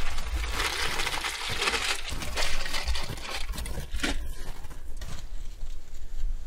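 Plastic carrier bag rustling and crinkling as groceries are taken out of it, with a few light knocks of items. It stops about five seconds in, leaving a quieter even background.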